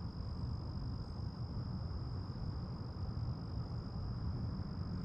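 Quiet outdoor background: a steady low rumble, with a constant high-pitched insect trill over it.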